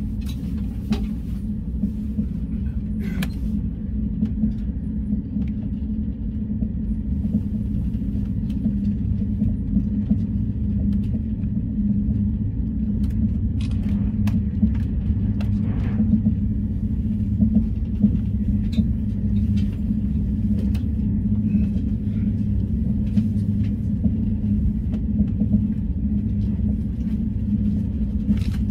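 Steady low rumble of a passenger train running at speed, heard from inside the carriage, with a few sharp clicks from the running gear or carriage, one about three seconds in and a couple around fourteen to sixteen seconds.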